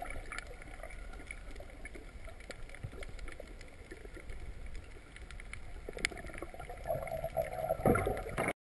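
Underwater sound picked up by a camera in a waterproof housing over a coral reef: a muffled steady water rush with scattered faint clicks, growing louder in the last second or two before cutting off suddenly.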